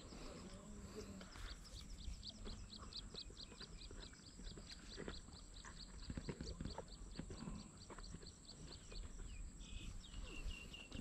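Faint animal calling: a long even run of quick clicking notes, about five a second, ending with a few short piping notes near the end, over a steady high thin whine.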